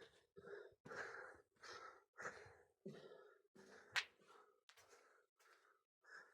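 Faint footsteps walking at a steady pace, about one every half second or so, with a single sharp click about four seconds in.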